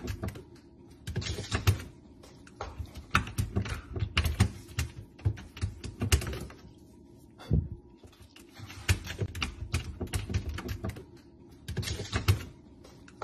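A puppy's claws scrabbling at the plastic drawer of an open refrigerator, in irregular bursts of rapid clicking taps with short pauses between.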